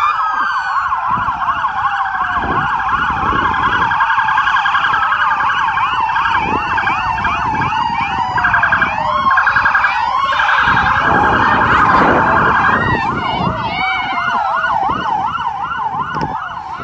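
Several police car sirens going at once as cruisers drive past, fast yelping sweeps overlapping with slower wails. The sirens stop right at the end.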